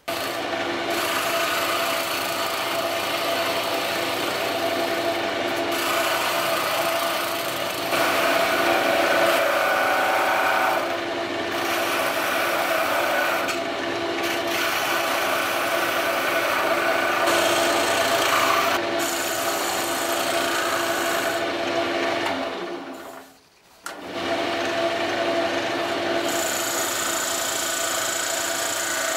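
Small benchtop wood lathe running with a steady motor hum while a turning chisel cuts the spinning wooden spindle, a continuous scraping, shaving sound that grows and eases with the cut. It breaks off for a moment about three-quarters through, then resumes.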